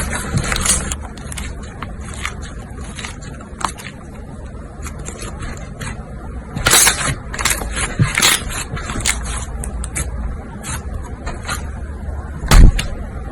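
Hands poking and squishing slime: a run of sticky crackles and pops, with a louder pop near the end.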